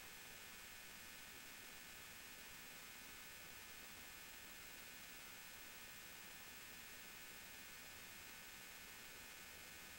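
Near silence: a faint steady electrical hum and hiss.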